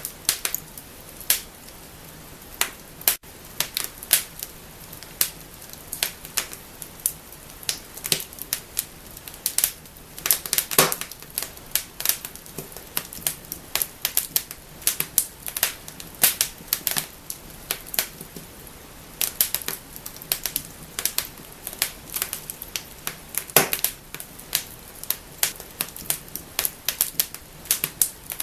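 Wood fire in a fireplace crackling and snapping: irregular sharp pops over a faint steady hiss, with two louder snaps, one about a third of the way in and one past the three-quarter mark.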